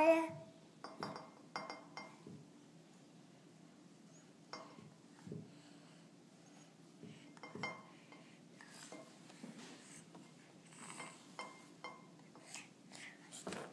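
Faint, scattered small taps and clicks on a plastic high-chair tray, about ten of them spread irregularly through the stretch, from a toddler leaning on and mouthing at the tray.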